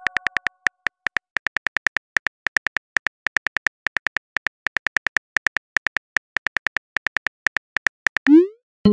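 Rapid keyboard-tap clicks from a texting-app animation, one per letter as a message is typed, about five a second with short pauses. Near the end comes a brief rising swoosh as the message sends.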